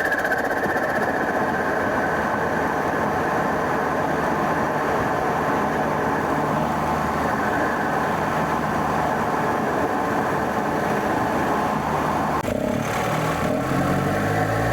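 BMW 328i's N20 turbocharged four-cylinder engine driving along, with a steady mix of engine, intake and road noise. About twelve and a half seconds in the noise drops suddenly, and then the engine note climbs again as the car pulls.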